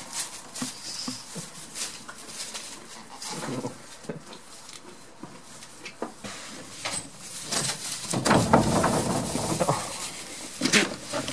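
Goats moving about in a straw-bedded wooden pen: rustling straw and scattered light knocks and clicks. About eight seconds in comes a louder close rustle and rumble lasting a couple of seconds, as a goat brushes right up against the camera.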